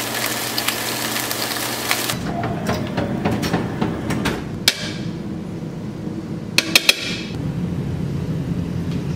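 Food sizzling in a nonstick frying pan, cut off suddenly about two seconds in. Then scattered clicks and knocks as kitchen dishes and a microwave drawer are handled, over a low hum.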